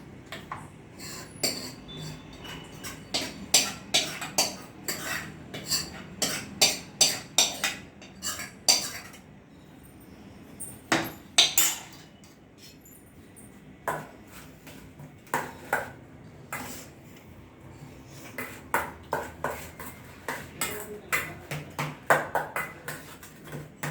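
Spoon clinking and scraping against a cooking pan, in irregular runs of sharp knocks with brief pauses, as mashed potato is added and worked in.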